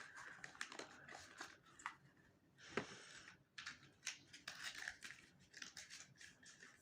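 Faint handling noises: a run of small clicks and rustles, with a longer rustle about three seconds in.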